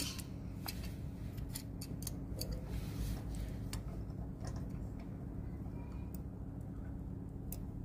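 Scattered, irregular light metallic clicks and ticks as pliers and a steel pin knock against a tow hook and its mounting bracket, over a low steady hum.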